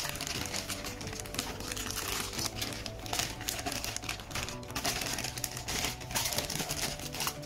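Clear plastic poly bag crinkling and rustling irregularly as a toy is worked out of it by hand, over soft background music.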